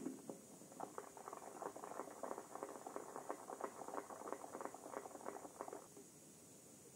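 Tail of a shotgun shot at the very start, then a small crowd of spectators clapping for about five seconds before it dies away.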